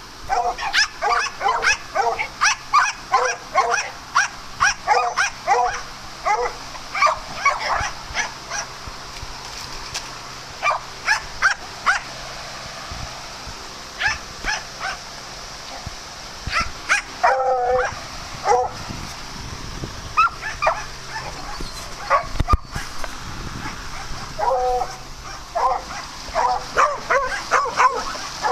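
Dogs barking at play in quick runs of short barks, thick at first, thinning out in the middle and picking up again near the end.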